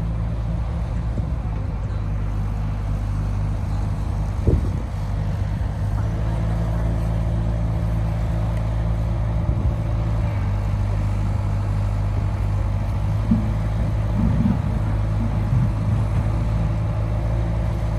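Heavy diesel engine running steadily at low revs, with one sharp knock about four and a half seconds in and a few lighter knocks later on.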